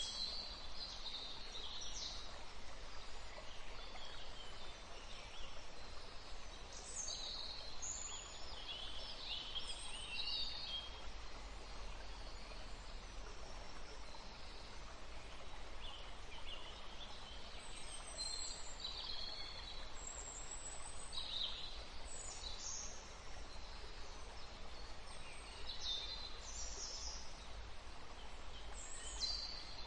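Forest ambience of steady green noise, an even hiss, with small birds singing and chirping in short high calls scattered throughout.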